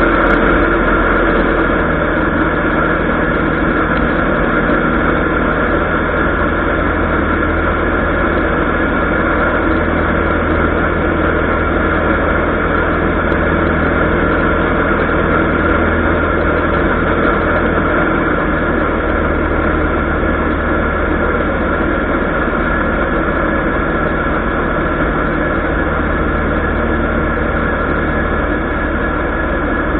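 ULPower engine and propeller of a Zenith 750 light aircraft running steadily in flight, heard from inside the cockpit as a constant hum with several steady tones.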